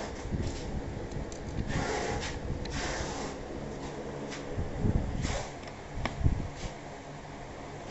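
Hands handling the plastic back cover and metal frame of an office chair during assembly: rustling and scraping, with a few sharp clicks and knocks about five to six seconds in as a screw is fitted into the cover.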